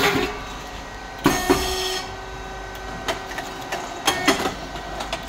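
Hydraulic rice cake popping machine running: a steady hum from its pump motor with sharp mechanical clacks several times, and a short burst of hiss about a second and a half in.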